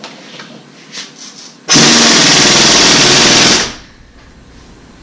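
Pneumatic impact wrench hammering for about two seconds, starting a third of the way in and winding down, as it turns the screw of a ball joint press to press a new wheel stud into the wheel hub.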